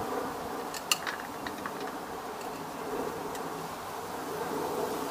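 Light clicks and taps of plastic filter-housing parts and fittings being handled, the sharpest about a second in, over a steady low hum.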